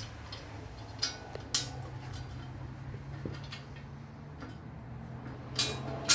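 Steel fasteners and frame parts clinking and clicking as bolts, washers and nuts are handled and fitted to the press frame: several sharp metal clinks, the loudest about a second and a half in and near the end, over a steady low hum.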